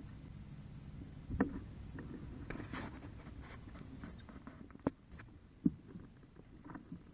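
Kayak paddling: soft paddle splashes in the water, with three sharp knocks of the paddle against the kayak, the loudest a bit before the two-second mark and near the end.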